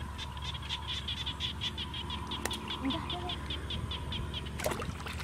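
A frog calls in a rapid, even train of short high chirps, about seven a second. Near the end comes a brief splash of water as hands work inside a bamboo fish trap.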